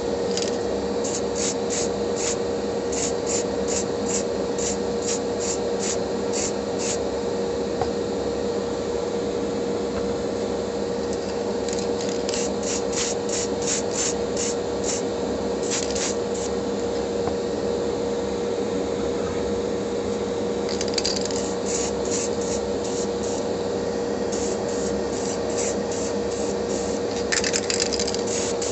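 Spray painting in a small hobby spray booth: the extraction fan runs with a steady hum under the hiss of paint spraying onto a die-cast car part. Several runs of sharp clicks, about three a second, come in for a few seconds at a time.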